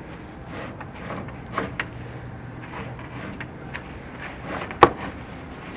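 Scraping and rubbing noises from chimney inspection camera gear, with a few light clicks and one sharp knock near the end.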